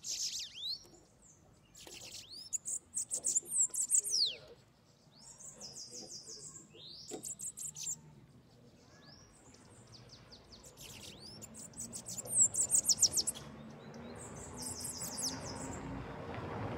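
Caged bananaquit (sibite) singing: repeated phrases of high, rapid buzzy notes and short down-slurred whistles, coming every few seconds. A rushing noise swells near the end.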